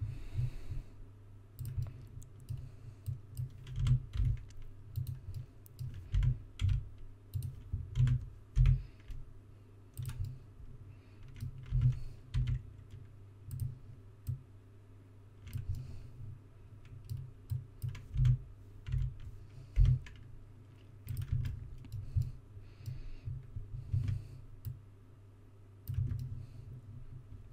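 Computer keyboard keys tapped irregularly, single presses and short runs of shortcut keys, each with a dull knock.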